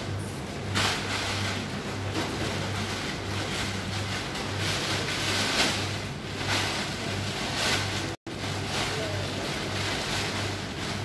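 Laundromat machinery running: a steady rushing noise with a low, pulsing hum from the banks of commercial washers and dryers. Rustling of wet clothes being pulled from a front-loading washer into a bag comes and goes over it, and the sound cuts out for an instant about eight seconds in.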